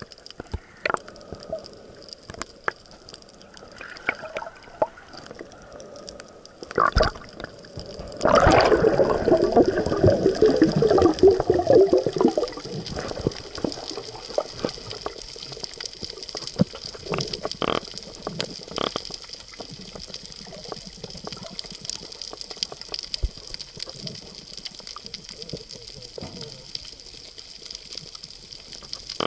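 Underwater sound heard through a submerged camera: scattered clicks and crackling throughout, and a loud burst of bubbling and gurgling from about eight seconds in that fades out around twelve seconds.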